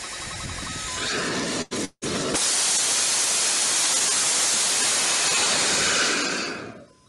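Static test firing of the self-built Supernova hybrid rocket engine, burning a star-shaped ABS plastic solid fuel grain. A hiss builds and breaks off briefly twice, then the burn gives a loud, steady rushing roar for about four seconds, dying away near the end.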